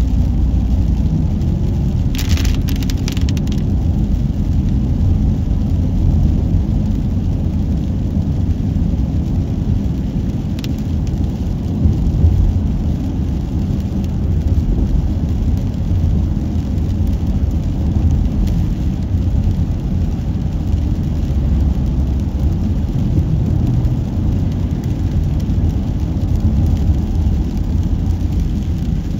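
Car driving on a highway: a steady low rumble of tyre and engine noise, with a short burst of hiss about two seconds in.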